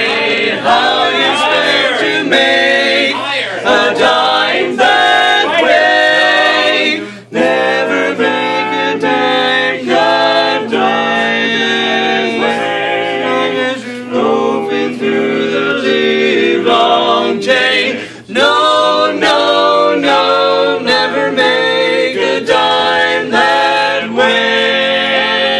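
A barbershop quartet of four men singing a cappella in close four-part harmony, held chords with two short breaks between phrases, about seven and eighteen seconds in.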